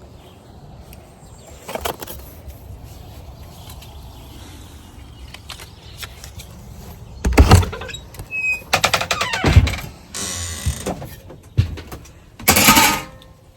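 A few loud knocks and scraping noises, with one short high squeak about nine seconds in.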